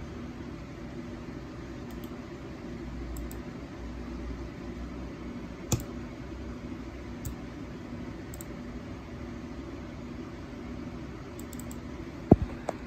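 Steady low hum and hiss, with a few light clicks and then two sharp computer mouse clicks near the end.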